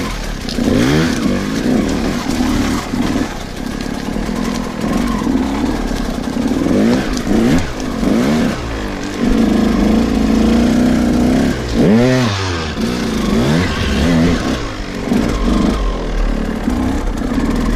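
KTM EXC 200 two-stroke enduro motorcycle engine being ridden hard, revving up and down over and over as the throttle is opened and shut, with one sharp drop and climb in revs about twelve seconds in.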